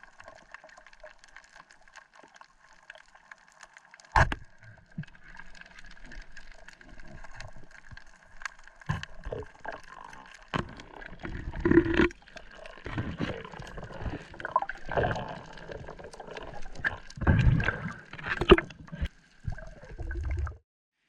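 Water splashing and gurgling, with irregular knocks and deep thumps. The first sharp knock comes about four seconds in, after a few seconds of faint steady hiss.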